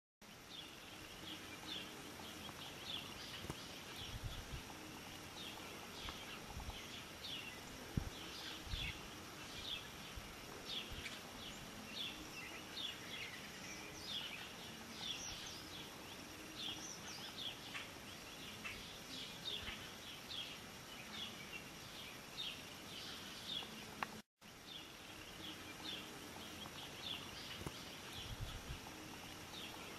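Small birds chirping over and over in short, quick high notes, over a steady hiss, with a few soft low thumps. The sound cuts out for a moment about four-fifths of the way through.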